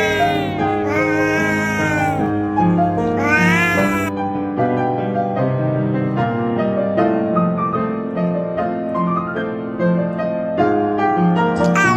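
A cat meowing three times, long drawn-out meows, over background music in the first four seconds; after that the music carries on alone.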